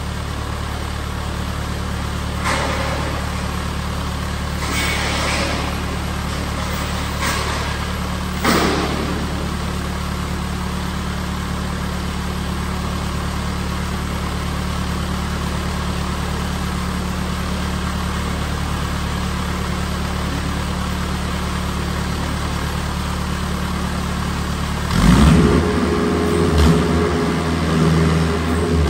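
Truck's diesel engine idling steadily, with a few short knocks in the first nine seconds. About 25 s in the engine note rises and changes as it speeds up.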